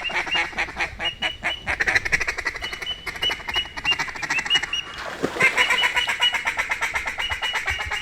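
Mallard duck calling: dense, rapid runs of quacks and chatter, with short high whistle notes over them and a brief lull about five seconds in.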